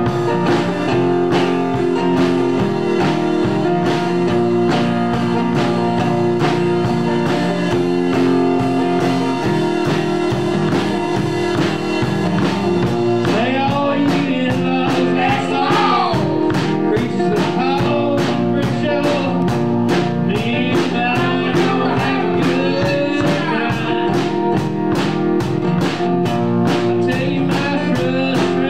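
Live band playing a song: guitar over a steady drum-kit beat, with a bending lead line coming in about halfway through.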